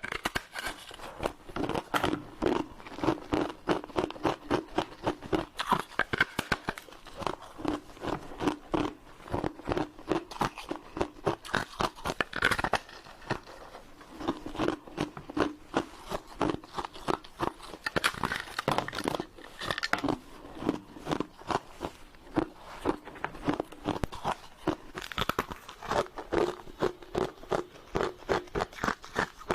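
Close-up crunching and chewing of frozen snow foam: a steady run of sharp, brittle crunches, several a second, as it is bitten and chewed.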